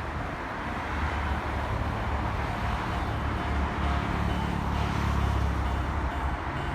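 A train rumbling past a level crossing. The rumble builds about a second in, is loudest a little past the middle and eases near the end. The crossing's warning bell dings faintly and evenly throughout.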